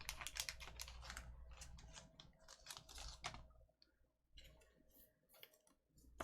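Faint rapid clicks and rustles of trading cards and their plastic holders being handled, stopping about three and a half seconds in, then near silence.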